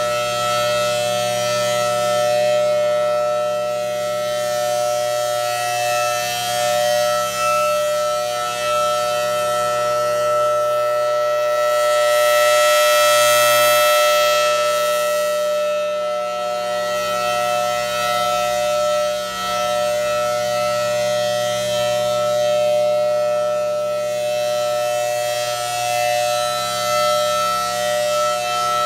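Federal Signal Thunderbolt 1000T outdoor warning siren running at full power, holding a steady chord of several tones rather than a single tone. Its rotating horn sweeps past, so the sound swells about every ten seconds, loudest about halfway through.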